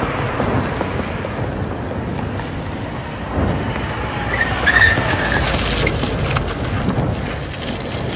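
A vehicle engine and road noise from traffic passing on the street, with wind buffeting the microphone. A brief high squeal comes about halfway through.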